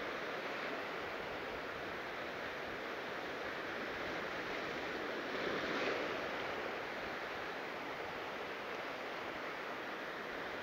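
Ocean surf washing over a rocky shore: a steady rushing wash that swells briefly as a wave breaks about halfway through.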